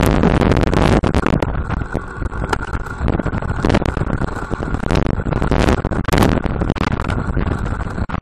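Wind buffeting the microphone of a bicycle-mounted action camera while riding, with a heavy low rumble and many sharp knocks and rattles as the bike rolls over the road.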